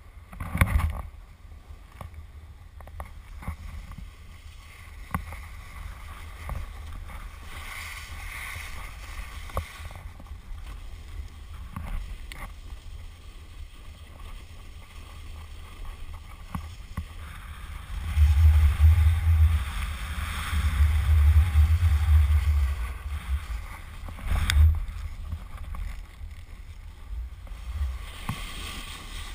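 Snowboard sliding and scraping over snow, with wind rumbling on the microphone of a pole-held camera; the rumble is heaviest for several seconds from about two-thirds of the way in. A sharp knock about a second in.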